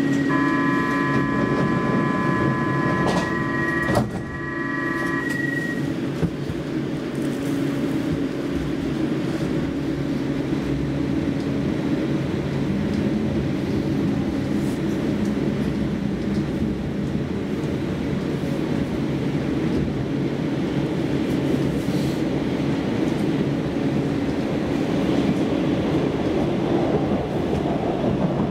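Inside a Stockholm Metro C20 train: a steady electronic warning tone of several notes sounds for about five seconds while the train stands at the platform, with a knock about four seconds in as the doors shut. The train then pulls away, its traction motors humming under a steady rumble of wheels on rail.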